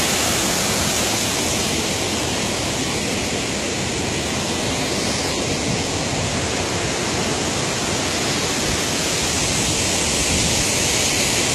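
Large, wide waterfall rushing: falling water making a steady, even noise that does not change.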